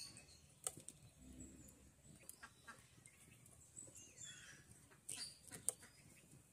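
Faint sounds: a few sharp clicks as a curved knife cuts banana-flower florets, the loudest a little before the end, with hens clucking in the background.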